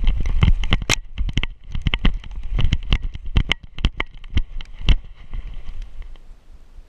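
A dog running through snow, heard from a camera strapped to its back: rapid, irregular knocks and clicks from its footfalls and the jostling mount, over a low rumble from the jolting.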